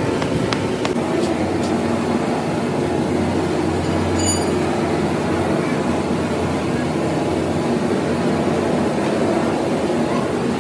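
Steady running machinery with a low hum that grows a little stronger about three to five seconds in.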